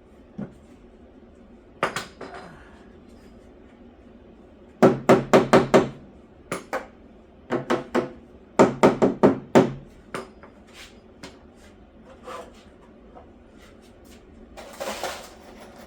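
Hammer blows in quick runs of about five or six strikes a second, with a slight ringing, two main runs midway and a few single knocks around them; a short scraping rustle near the end.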